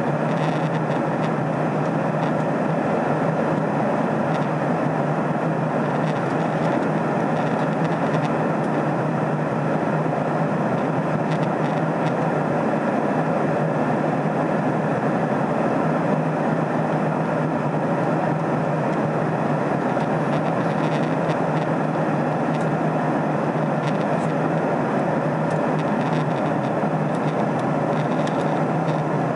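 Steady in-flight cabin noise of a jet airliner, heard from inside the cabin: a constant drone of engines and airflow with a steady low hum.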